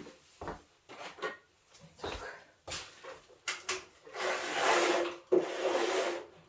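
A wide broom sweeping the floor: a few short scraping strokes, then two longer, louder sweeps near the end.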